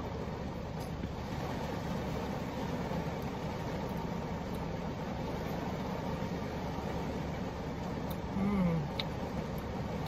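Heavy rain falling on a car's roof and windows, heard from inside the cabin as a steady, even patter. A brief low hum of a voice comes near the end.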